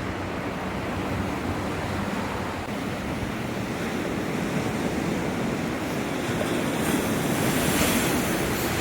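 Ocean surf washing onto a beach, with wind buffeting the microphone; the wash swells a little louder near the end.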